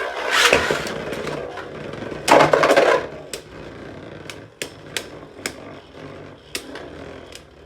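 Two Beyblade Burst tops, Rage Longinus 3A Destroy' and Judgment Diabolos Blitz Octa, spinning and clashing in a plastic stadium: a whirring rattle with two loud grinding collisions, near the start and about two seconds in, then a string of sharp separate clacks as they knock together.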